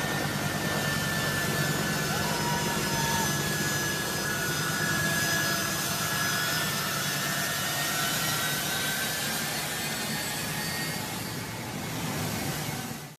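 Turbofan jet engines of a U.S. Air Force C-17 transport running close by as it taxis: a loud steady rush with a high whine over it. The sound cuts off suddenly at the very end.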